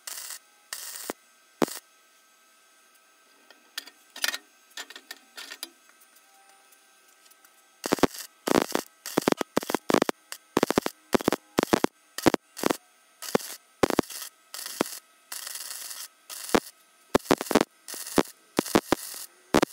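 MIG welder stitch-welding a seam on a sheet-steel frame piece, the arc running in short bursts of about half a second. A few bursts at the start, a pause of several seconds, then the bursts resume about eight seconds in, one or two a second.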